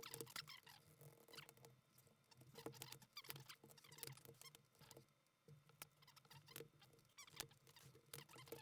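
Faint, quick plastic clicking and clattering of keycaps being pulled off and pressed onto the Cherry-style switch stems of a mechanical keyboard. The footage is sped up, so the clicks come fast and irregular with chirpy squeaks among them.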